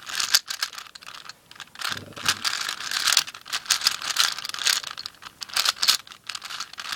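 Plastic 4x4 speed cube being turned quickly by hand during edge pairing, its layers clicking and clacking in rapid irregular runs with short pauses between.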